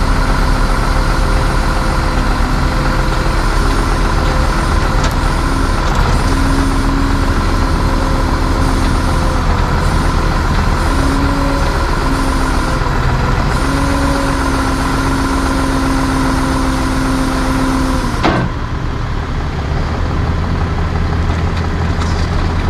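Rollback tow truck's engine running with its hydraulic winch pulling a car up the tilted bed, a whining tone over it that wavers in pitch. About 18 seconds in there is a knock, the whine stops, and the engine carries on idling more quietly.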